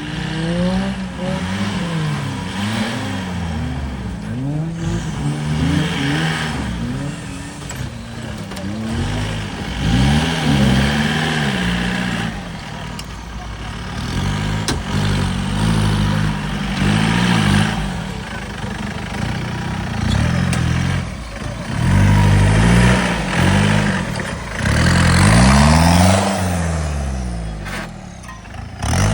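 Off-road 4x4 engine revving hard over and over, its pitch climbing and dropping every second or two as the throttle is worked.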